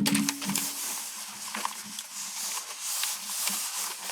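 Packaging rustling and crinkling, with many small clicks of handling, as a keyboard is unwrapped.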